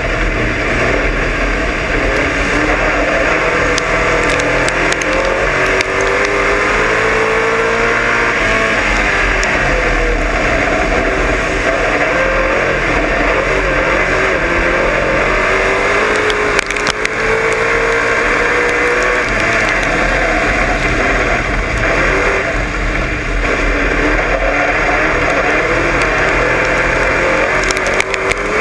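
Dirt-track race car's engine heard from inside the cockpit at racing speed, its pitch climbing and dropping over and over as the car accelerates and the throttle is lifted, under a constant rough rattle and occasional sharp clatters from the car.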